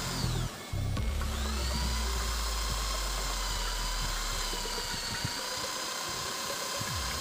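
Electric drill boring into a wooden handle block: the motor spins up about a second in with a brief rise in pitch, then runs at a steady whine.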